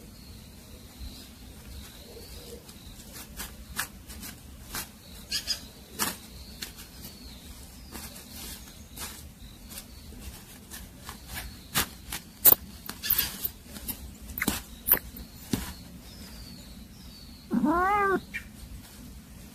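A cat gives one loud meow near the end, rising then falling in pitch. Before it come scattered short, sharp clicks and ticks.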